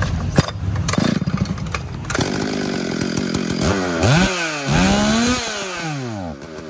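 Stihl MS382 two-stroke chainsaw engine running, revved up twice in quick succession about four and five seconds in and dropping back each time.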